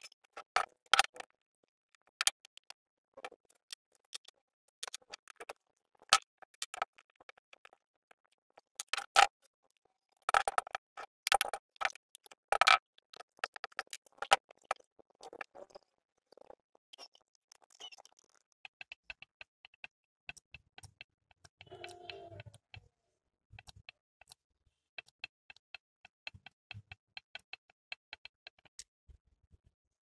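Irregular sharp metallic clicks and taps of hand tools and loose parts against the aluminium crankcase of a small generator engine as it is taken apart. The clicks come thickest midway, with a brief duller scrape or clunk a little past two-thirds of the way through.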